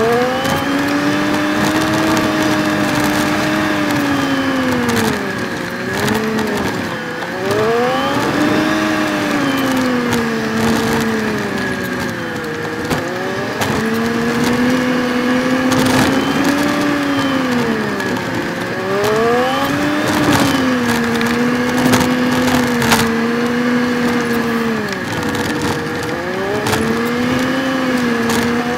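A Suzuki Jimny JB23's small turbocharged three-cylinder engine driving, heard from inside the car, with the audio sped up along with the picture so its pitch is raised. The revs rise and fall over and over as it works through the bends, with a steady high whine beneath.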